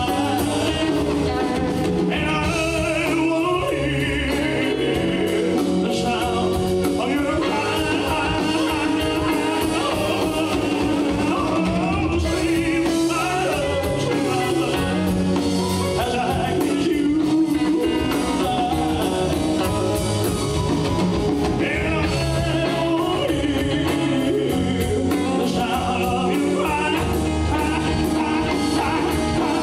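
Male singer with a live rock band playing a song, drums and bass keeping a steady beat under the vocal.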